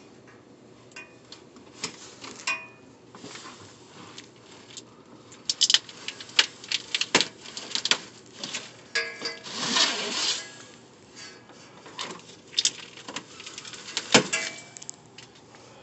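Irregular metallic clicks, knocks and scraping as a part is worked loose by hand under a Ford Crown Victoria during fuel pump removal, with a longer scraping noise about two-thirds of the way through.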